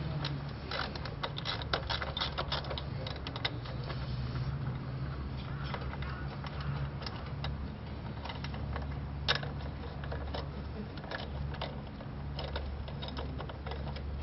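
Scattered small metallic clicks, clinks and knocks of hand tools and parts as the rear brake is taken off a Triumph Bonneville motorcycle, with one louder knock about nine seconds in, over a steady low hum.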